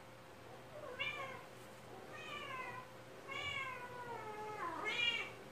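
A domestic cat meowing four times, most of the meows gliding down in pitch, the loudest near the end. The owner reads the meowing as the cat wanting to go inside.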